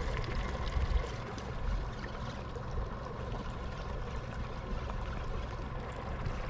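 Lake water lapping and trickling against a boat's hull, over a steady low rumble.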